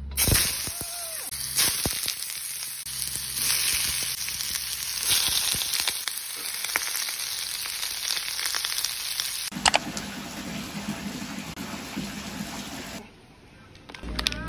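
Sliced cucumber sizzling loudly in hot oil in a stainless steel wok, the hiss starting abruptly as the slices go in, with the steel spatula scraping and clicking against the pan as it stirs. The sizzle drops away about a second and a half before the end.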